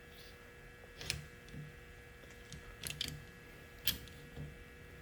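Sharp plastic clicks and taps from a wiper blade's hinged adapter cover being worked onto the wiper arm's hook, the clearest about one, three and four seconds in, over a faint steady hum.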